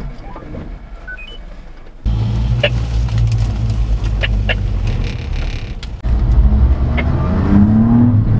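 Daihatsu Hijet mini truck's 660cc three-cylinder engine heard from inside the cab: quiet at first, then from about two seconds in a loud, steady low hum as the truck pulls away and drives. The engine note dips briefly about six seconds in, then rises in pitch near the end as it speeds up.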